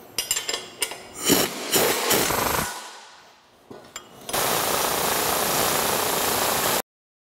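Pneumatic impact wrench tightening the bolts on a steel snow plow frame. It gives a few short bursts, then one steady run of hammering of about two and a half seconds that cuts off suddenly.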